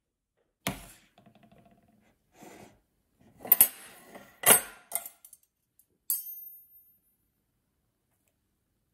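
Small hard objects being handled and set down: a few separate sharp knocks and clinks, the loudest about three and a half and four and a half seconds in, and one about six seconds in that rings briefly.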